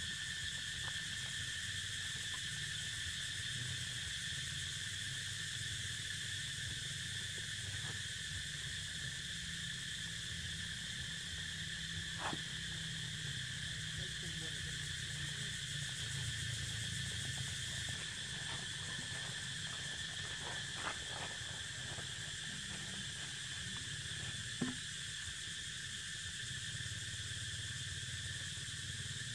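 Steady, high-pitched insect drone, typical of a cicada chorus, over a low rumble, with a few faint short clicks.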